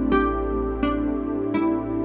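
Background music: a slow, gentle new-age piece with a few struck keyboard notes, each ringing out, over a held low tone.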